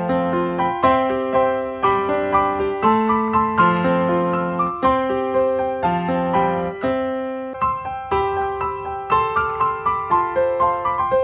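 Background piano music: a gentle melody of single notes over low chords, each note struck and fading away, several notes a second.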